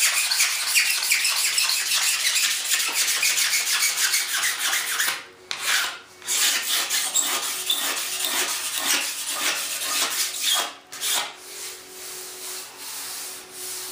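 Single-edge razor blade scraping cured excess resin off a fiberglassed wing surface in fast, short strokes. It pauses briefly about five seconds in and again near eleven seconds, and the strokes are lighter toward the end.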